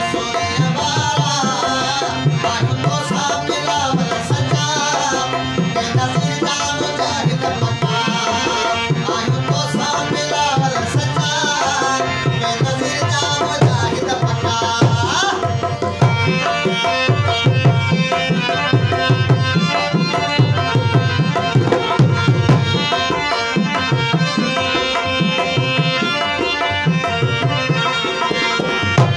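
Live folk song on two harmoniums with a drum keeping a steady beat. A male voice sings over the first half, then the harmoniums carry an instrumental passage from about halfway through.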